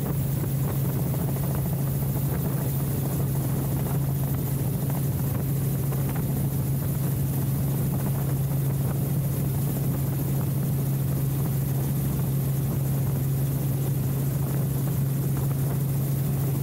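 Helicopter in flight heard from inside its open-door cabin: a steady low hum of rotor and engine over an even rush of wind.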